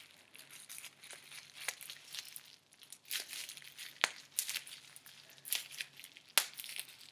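Plastic bubble wrap crinkling and crackling, with a few louder sharp snaps scattered through.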